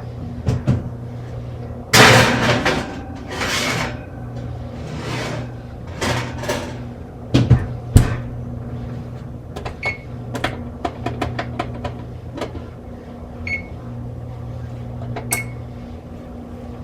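Kitchen clatter and knocks, like an oven door and baking tray being handled, then a run of quick clicks and a few short electronic beeps as the oven timer is set, over a steady low hum.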